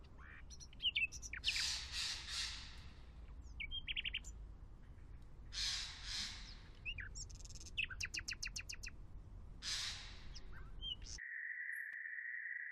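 Small birds chirping and trilling, with short scraping swishes of a metal spatula cutting an omelette on a steel plate. About eleven seconds in, everything else cuts out and a single steady high tone takes over.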